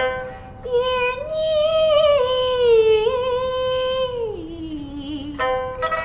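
Pipa plucked at the start, then a woman's voice singing one long note that slides about and falls in pitch near the end, before quick pipa plucking comes back in.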